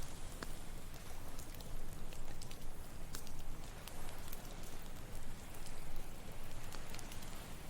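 Campfire crackling with irregular sharp pops over a steady low wash of ocean waves.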